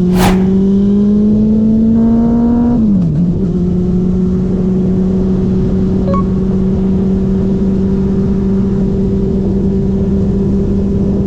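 Honda CB400 Super Four's inline-four engine running under way, with wind rush. The revs climb slowly, drop sharply about three seconds in as with an upshift, then hold steady at a cruise.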